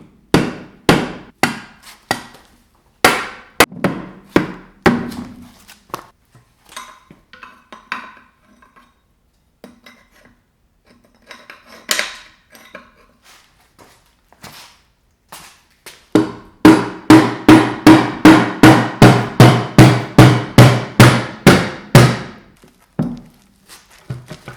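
Hammer blows on metal while working the classic Mini 1275 A+ engine block and gearbox apart. First come scattered single strikes, then a fast run of ringing blows, about three a second, for several seconds near the end.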